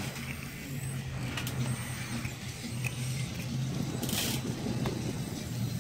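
Small electric motors of a radio-controlled Komatsu PC1250 model excavator running as the boom and bucket move, a low hum that shifts in pitch from moment to moment. A short gritty scrape about four seconds in as the bucket digs into the dirt.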